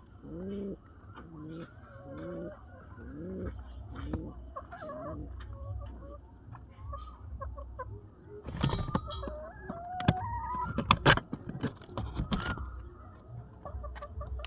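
Domestic pigeon cooing: a series of rising coos, about one every 0.7 s, through the first four seconds. In the second half come higher bird calls and a loud run of sharp clatters.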